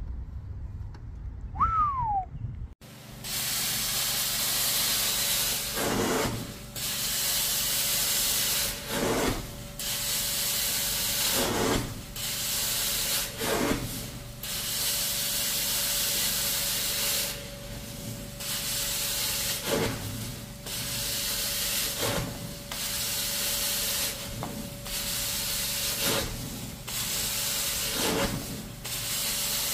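Carpet-cleaning extraction wand running on a rug: a steady hiss of spray and suction that starts suddenly about three seconds in and dips briefly every two to three seconds. A short falling squeak comes just before it starts.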